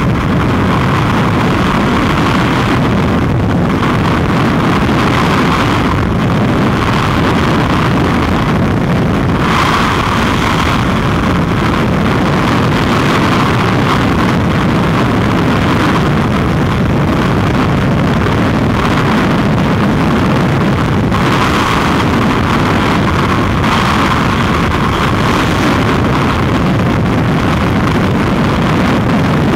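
Loud, steady roar of freefall wind across a skydiving camera's microphone. Its higher hiss swells and drops every few seconds.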